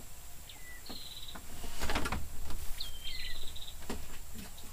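A bird calling over and over, each call a quick falling note followed by a short buzzing trill, three times. About two seconds in comes a louder rustling scrape with a few light knocks.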